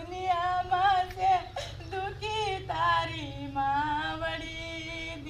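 A woman singing a slow, plaintive prayer in long held notes that slide and waver, with short breaks between phrases, over a steady low hum.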